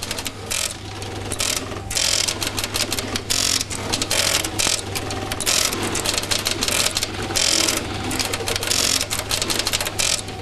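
Strowger step-by-step telephone exchange selectors clicking and clattering as they step through their contact banks, in irregular bursts of rapid ticking.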